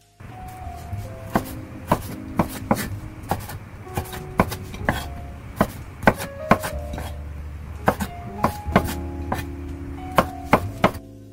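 Kitchen knife slicing asparagus on a wooden cutting board. The blade knocks against the board in sharp, irregular strokes, roughly two a second, over soft background music.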